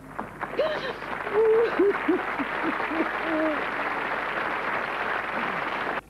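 Studio audience applauding, with a woman's short tearful sobs and whimpers over it during the first few seconds; the applause cuts off suddenly near the end.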